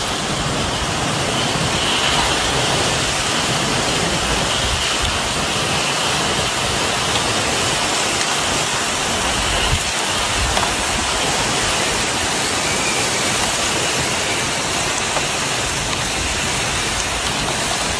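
Heavy storm rain pouring steadily: a continuous, even rush of water with a couple of faint clicks.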